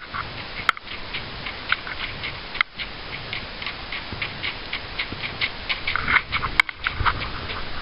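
Hoofbeats of a ridden horse on frozen, gravelly ground: a quick, fairly even ticking about four times a second. A few sharper clicks stand out.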